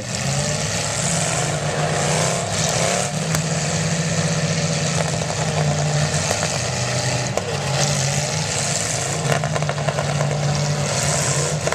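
Demolition derby cars' engines running and revving as the cars move in the arena, with occasional sharp knocks, more of them near the end.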